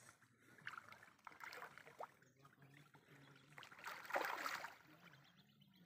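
Faint water swishing and splashing as a hooked rohu swirls at the surface, loudest in a short rush about four seconds in.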